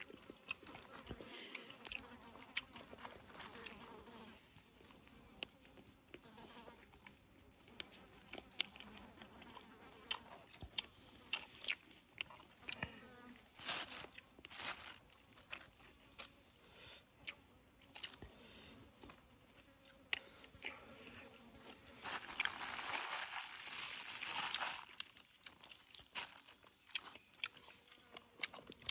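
A person close to the microphone chewing and biting mouthfuls of sticky rice and cooked meat, with many small crunches and clicks. About three quarters of the way through there is a louder, noisy rustle lasting about three seconds.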